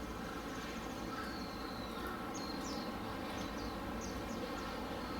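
Steady outdoor background noise with a few short, high bird chirps in the middle stretch.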